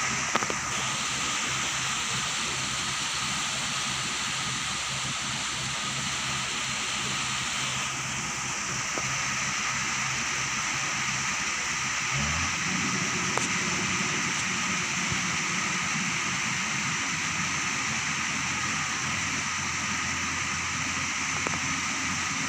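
Kubota DC-93 combine harvester's diesel engine running steadily while cutting rice, over a constant hiss of rain. About twelve seconds in, the engine's low hum shifts to a different steady pitch.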